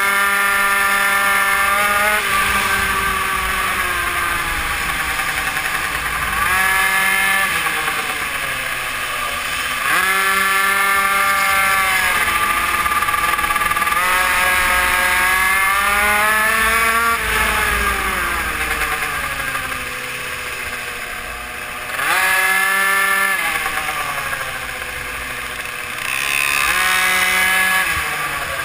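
GRC RR BZM super mini moto's small two-stroke engine being ridden hard. The revs climb sharply several times out of the corners, hold high down the straights and drop away into the bends.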